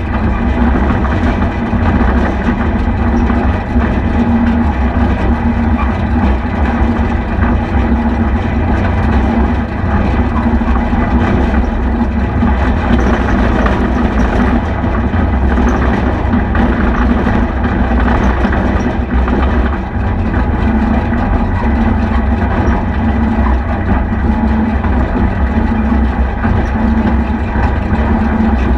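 Deutz D4506 tractor's air-cooled four-cylinder diesel engine running steadily at an even speed.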